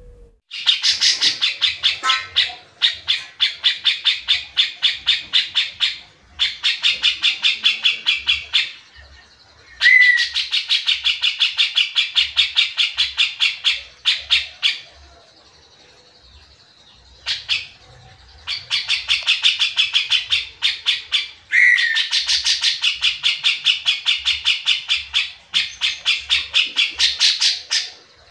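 Grey-cheeked bulbul (cucak jenggot) singing in long, rapid trains of repeated high notes, several a second. The trains run in phrases of a few seconds with short pauses between them.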